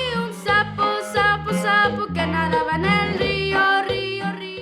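Accordion playing a lively norteño tune, with bass notes alternating in a steady rhythm under the melody.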